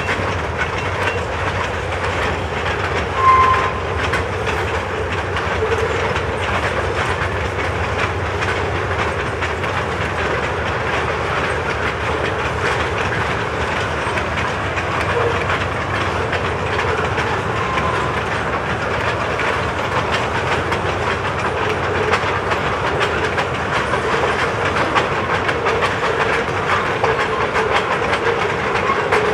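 Freight train cars rolling past: a steady rumble with the clickety-clack of steel wheels over rail joints. A short high screech comes about three seconds in.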